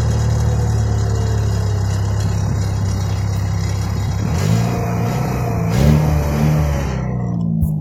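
Opel Astra J OPC's 2.0-litre turbo four-cylinder idling, revs settling at the start and two short throttle blips a little past halfway. The engine is making a tinny rattle, which the owner suspects comes from the exhaust flex pipe or the catalytic converter.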